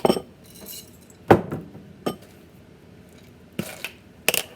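Kitchenware clinking and knocking while pepper is added to beaten eggs in a bowl: a handful of separate sharp clinks, the loudest about a second and a half in, with softer ones at the start, around two seconds in and near the end.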